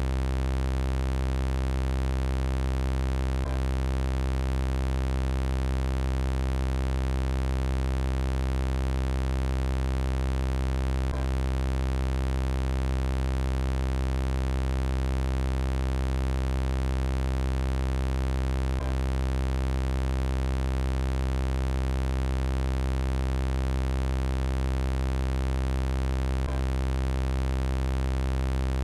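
Synthesized robot-voice sound effect: a steady, low electronic buzzing drone with many evenly spaced overtones, unchanging in pitch. It repeats as a loop, with a faint click at each seam about every eight seconds.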